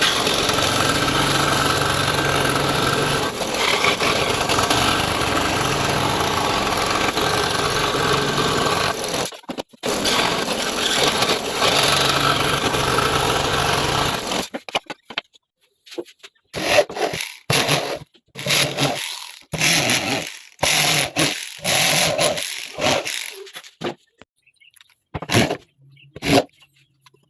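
A power tool in wood or metal work running steadily for about nine seconds, stopping briefly, and running again for about five seconds, followed by a series of short separate scraping strokes.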